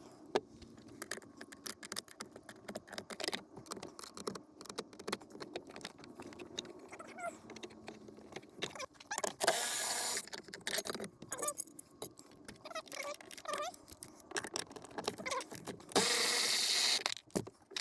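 Socket wrench loosening the 10 mm bolts on a battery hold-down bracket: many small metallic clicks and clinks, with two short louder bursts of noise, one about halfway through and one near the end.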